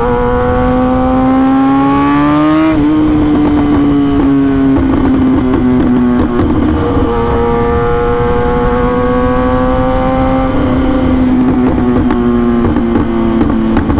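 Kawasaki ZX-10R inline-four engine running at highway speed: its pitch climbs for the first few seconds, dips suddenly about three seconds in, then holds fairly steady with a slight drift and a small drop near the end. Wind rushes over the rider's microphone underneath.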